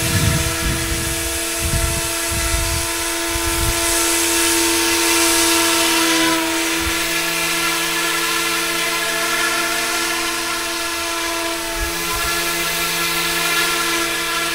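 Scale RC AH-64 Apache model helicopter hovering, its motor and rotors giving a steady high whine with a slight pitch wobble about six seconds in. Low gusty rumbling comes and goes in the first few seconds.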